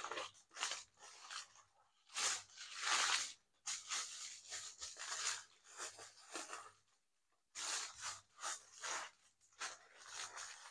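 Plastic cling film crinkling and rustling in irregular bursts as it is handled and rolled around a sausage, loudest about two to three seconds in.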